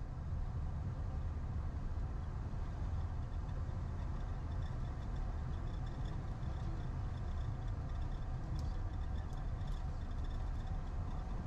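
Steady low rumble in a jet airliner's cockpit as it taxis: engines at taxi thrust and the wheels rolling over the concrete. A faint high whine comes and goes from about three seconds in, and a few light ticks sound near the end.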